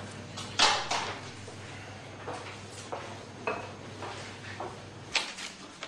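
Papers being gathered up at a desk, loudest about half a second in, then footsteps at an even walking pace, roughly one every 0.6 s. A steady low hum in the room cuts off abruptly near the end.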